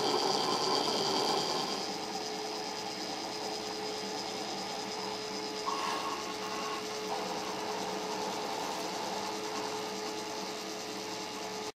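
Fused-filament 3D printer built on a CNC mill table, running as it extrudes plastic: a steady mechanical whine of its stepper motors with several held tones, a little louder for the first two seconds, and a brief higher tone about six seconds in.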